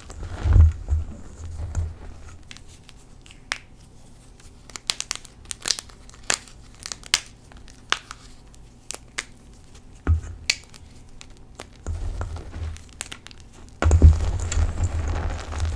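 Hands squeezing and pressing loose powdered Colift gym chalk. It opens with a few soft, dull crunches, then a run of short, sharp crackles as fingers press the powder together. About fourteen seconds in, a denser, louder crunching starts as both hands dig in and crush it.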